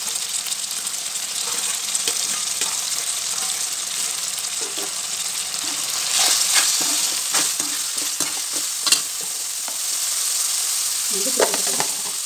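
Prawns sizzling in hot oil with onions in a metal kadai, a steady frying hiss. From about six seconds in, a steel slotted spoon scrapes and clinks against the pan as they are stirred, with one sharp clink near the middle.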